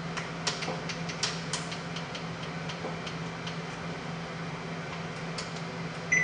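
Kitchen room tone with a steady low appliance hum and scattered light clicks and ticks of a cardboard box being handled. Near the end comes one short electronic beep, like an oven keypad.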